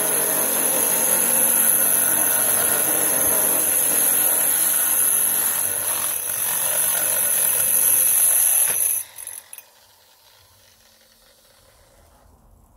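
Angle grinder with a diamond core bit boring through a stone countertop: a steady high whine over grinding noise. The motor cuts off about nine seconds in and winds down briefly. The hole is a starter hole at a corner of a sink cutout.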